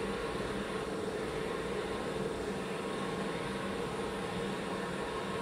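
Hydrogen water vending machine running steadily while it fills a high-pressure bottle, the pressure building: an even mechanical hum with a few steady tones held throughout.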